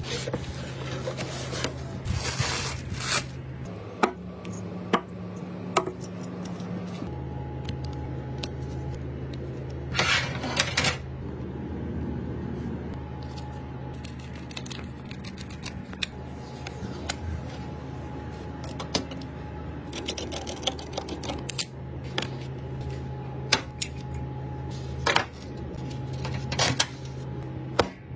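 Computer parts being handled and assembled at close range: scattered light clicks and taps of small metal and plastic parts, a screwdriver driving screws into an AIO liquid cooler's pump-block bracket, and a few short rustles of packaging, over a steady low hum.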